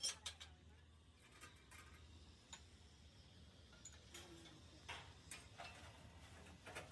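Quiet, with a quick run of sharp clicks that stops about half a second in, then a few faint, scattered ticks and knocks.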